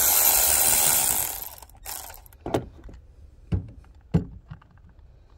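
Cordless electric ratchet whirring as it spins a stud out of an exhaust manifold heat shield, stopping after about a second. Then a few short metal knocks as the parts and tool are handled.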